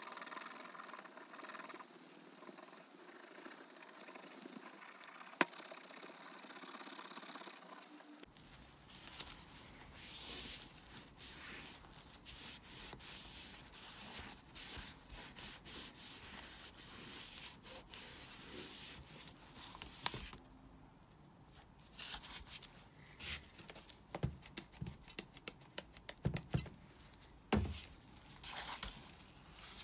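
Red Scotch-Brite pad and cloth rubbing over a forged piston's oily crown to scrub off carbon deposits: many short, irregular scrubbing and wiping strokes. A run of sharper light knocks comes near the end.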